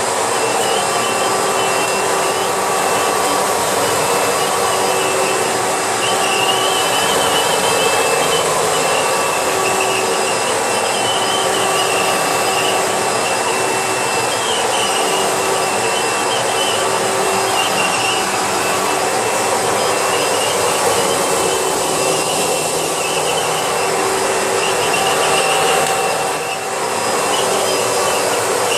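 Hoover Bagless Twin Chamber upright vacuum cleaner running steadily, with a steady whine and a warbling chirp that comes and goes above it; the owner allows there may be some bearing noise in this machine. The sound dips briefly near the end.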